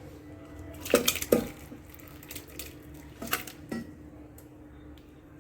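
Metal ladle knocking and scraping against pots while cooked onions, tomatoes and water are scooped out of a pressure cooker into a pot: two pairs of sharp clinks, about a second in and again just after three seconds, with soft wet sloshing.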